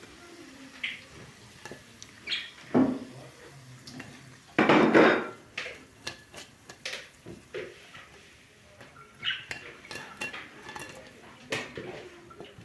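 Dishes and cutlery clattering: scattered clinks and knocks, with one louder clatter about five seconds in.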